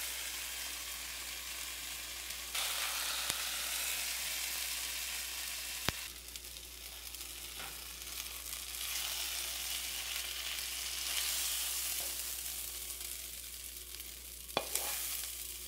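Hot taco filling of ground beef, rice, black beans and corn sizzling in a pan while it is scooped out with a utensil, with a steady hiss and a couple of sharp clicks.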